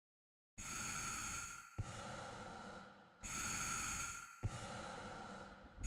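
A person breathing heavily: two slow breaths, each a louder breath lasting about a second followed by a softer one, starting after a moment of silence.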